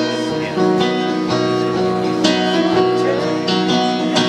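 Live band playing an instrumental passage: a guitar picked and strummed over held keyboard chords, a new note or chord starting every half second or so.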